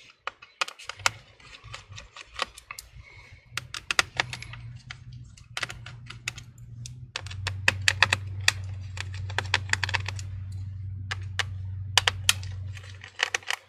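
Small Phillips screwdriver removing the tiny screws that hold a laptop battery, with many irregular sharp clicks and ticks of metal on metal. A low steady hum runs underneath, growing louder about seven seconds in and stopping shortly before the end.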